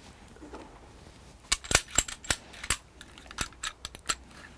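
Pistols being cleared by hand: a quick run of about a dozen sharp metallic clicks and clacks of slides being pulled back and locked open and magazines being handled, starting about a second and a half in.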